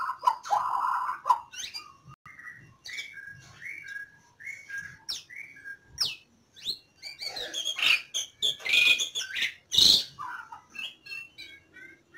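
White-rumped shamas calling in a breeding cage: a harsh buzzing call at the start, then short whistled chirps, building to a louder, busier flurry of calls about seven seconds in. A single sharp knock comes near the end.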